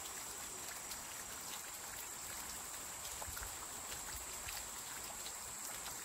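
Light rain falling on garden plants, an even patter with many small scattered drop ticks. A steady high-pitched tone sits underneath.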